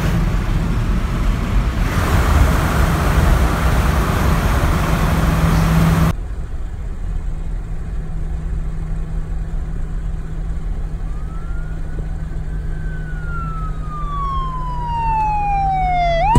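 Road and wind noise inside a moving car, loud for the first six seconds and then dropping abruptly, over a steady low hum. In the last five seconds an emergency vehicle siren wails, rising, falling slowly for several seconds, then sweeping sharply back up.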